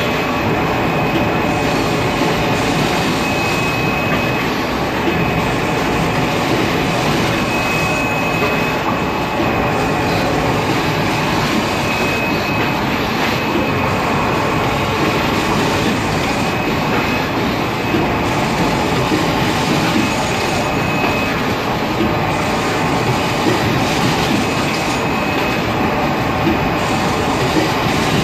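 Automatic kitchen towel packing machine running: a steady, loud mechanical clatter, with a faint high tone that recurs about every four seconds.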